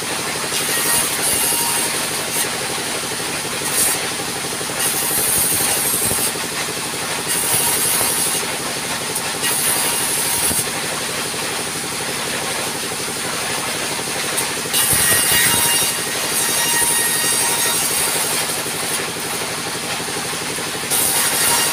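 Sawmill band saw resawing thin boards, driven by a diesel engine running steadily underneath. The blade's cutting hiss comes and goes in spells of a second or two as each board is fed through.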